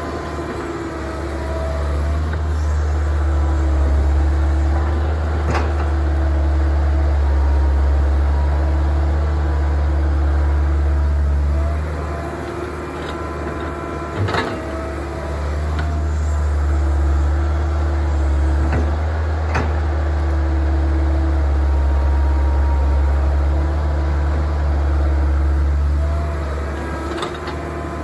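Kobelco crawler excavator's diesel engine running and working its hydraulics while digging, the engine note swelling under load twice and easing in between. A few sharp knocks come through, about a third of the way in, about halfway and about two-thirds of the way in.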